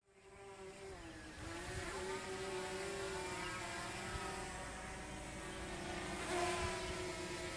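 Diesel locomotive approaching at a distance, its engine giving a steady hum with a slight swell about six seconds in.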